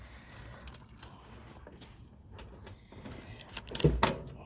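Light clicks and rattles of hands-on work, then a loud knock about four seconds in.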